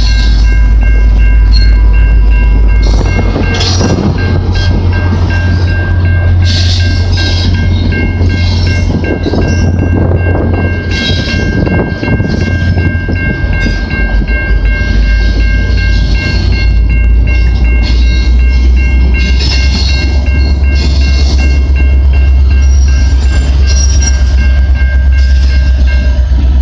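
VIA Rail passenger train passing close by, pulled and pushed by F40PH diesel locomotives. The lead locomotive's heavy rumble is loud at the start, the coaches clatter over the rails in the middle, and the trailing locomotive's rumble builds again near the end. A level-crossing warning bell rings steadily under it all.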